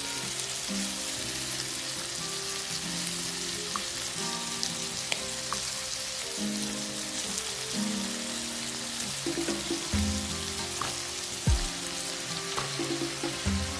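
Shrimp and chopped garlic sizzling steadily in a hot frying pan as they are stirred with a spatula, with background music underneath. A couple of sharp knocks come near the end.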